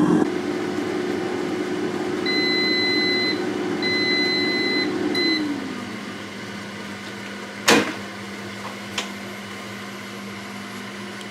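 Proscenic T21 air fryer's fan running, then beeping three times (two long beeps and a short one) to signal the end of cooking. The fan then winds down to a lower hum. A sharp clack comes about three quarters of the way through as the basket drawer is pulled out.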